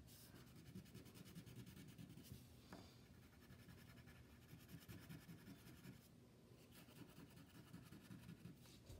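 Wax crayon rubbing faintly on paper, in short colouring strokes made in one direction.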